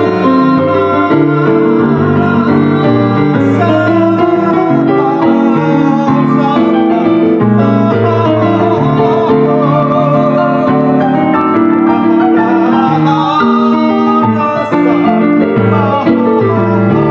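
Live piano improvisation with a man's singing voice carrying a wavering melody over the chords.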